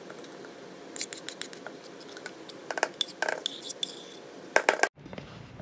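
A metal spoon scraping and clinking against a ceramic bowl and a blender cup as thick sauce is scooped out of the bowl, in a run of short irregular clicks and scrapes.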